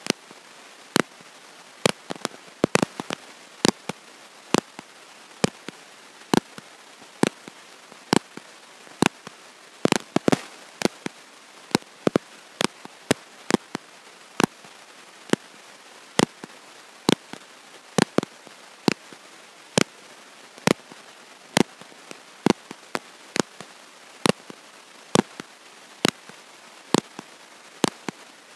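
Sharp digital clicks over a steady hiss, about one a second with extra bunches of clicks in between, and no speech, although a talk is under way with a microphone in use: a faulty audio recording.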